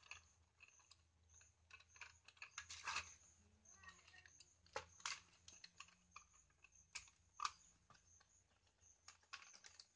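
Faint, irregular clicks and taps of a small screwdriver working the terminal screws of a switchboard socket while a wire is fitted.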